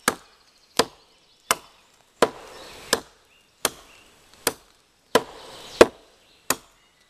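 Fiskars X7 hatchet chopping into a log on the ground: about ten sharp, regular strikes, roughly one and a half a second.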